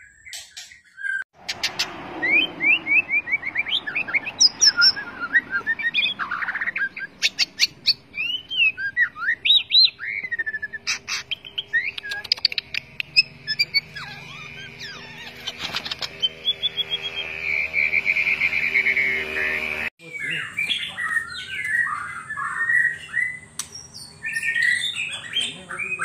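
White-rumped shama (murai batu) singing in full song: a varied run of clear whistled phrases, rapid note series and chattering notes, with a long trill a little past halfway. About three-quarters through the recording cuts to another singing bird.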